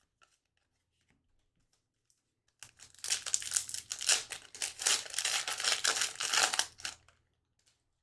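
Hockey card pack wrapper being torn open and crinkled: a dense, irregular crackle that starts about three seconds in, lasts about four seconds and stops abruptly.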